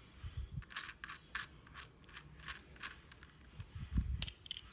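Solid brass lighter being handled, giving a dozen or so sharp, irregular metallic clicks with a few dull bumps.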